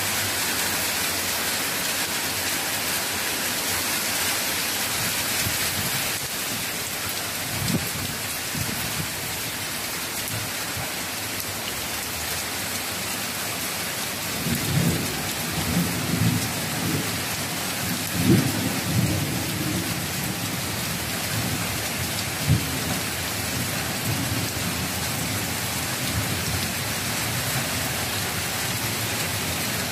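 Heavy rain pouring steadily, with low rumbles of thunder coming and going through the middle and one sharper clap shortly after.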